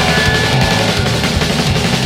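Recorded punk rock, the full band playing with no vocals: distorted electric guitars, bass and fast drums.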